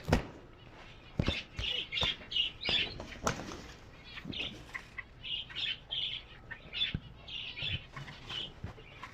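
Birds in a bird keeper's loft chirping again and again in short high calls, mixed with wing flaps and scattered sharp knocks.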